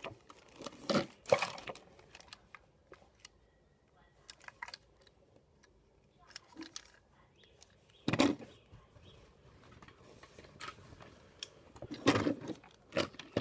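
Hard plastic Trackmaster toy engine being handled and turned over: scattered small plastic clicks and light knocks, with a few louder knocks about a second in, around eight seconds in and near the end.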